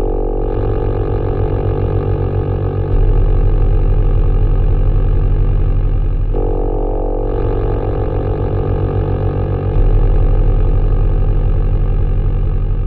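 Software modular-synth drone: a dense, raspy sustained tone with many stacked overtones. Its layers shift every few seconds, and it steps up in loudness about three seconds in and again near ten seconds.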